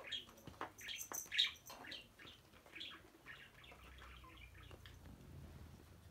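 Kitten scrabbling and wrestling with toys on a wooden floor: quick scratchy rustles and light taps, busiest in the first two seconds, thinning out later over a faint low rumble.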